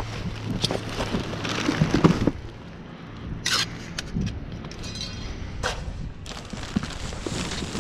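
Cardboard boxes and plastic trash bags crinkling and rustling as they are pulled around and shoved aside in a dumpster. It is busiest for the first two seconds, then quieter, with a couple of sharp cracks.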